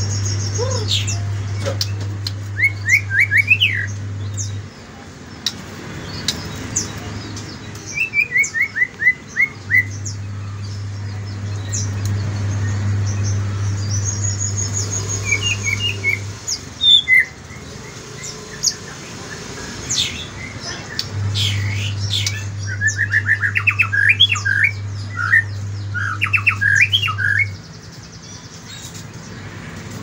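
White-rumped shama (murai batu) singing in bursts of rapid repeated whistled notes, with pauses between phrases. A steady low hum runs underneath in three stretches, stopping and starting again twice.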